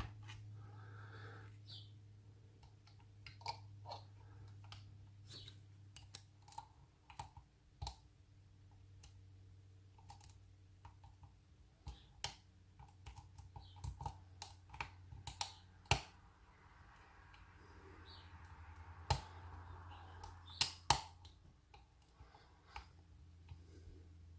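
Lock pick and tension wrench working in a night latch's pin-tumbler keyway: small, sharp metallic clicks and ticks at irregular intervals, over a steady low hum.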